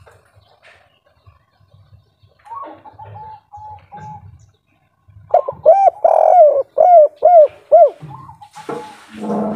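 Spotted dove cooing: a soft run of short notes a couple of seconds in, then a louder series of about six arching coo notes. A short burst of noise follows near the end.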